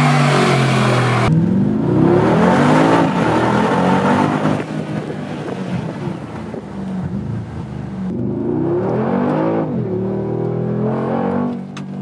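Mercedes-AMG G63's 4.0-litre twin-turbo V8 revving and accelerating. The engine note rises and falls several times, with an abrupt jump between takes about a second in.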